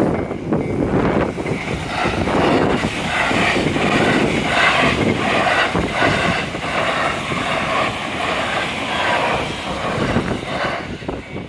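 A JR 683 series 4000 subseries and 681 series limited-express electric train passes close by at speed, with a steady rush of wheel and rail noise over about ten seconds. A level-crossing bell rings rhythmically, about twice a second, through it.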